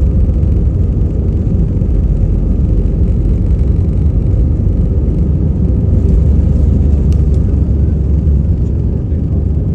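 Airliner engine and airflow noise heard inside the passenger cabin: a loud, steady low rumble around takeoff.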